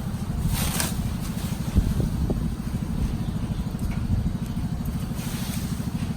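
A small engine idling steadily with an even, fast low throb. There is a sharp knock about two seconds in, and a few light clinks of metal parts being handled.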